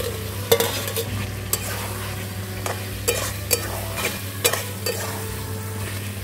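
Fried potatoes and pointed gourd being stirred and sautéed in a sizzling pan of spice paste, the cooking spoon clicking and scraping against the pan at irregular intervals.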